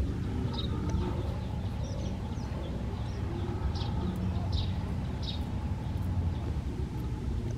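Birds chirping: short high chirps every second or so over a low steady rumble.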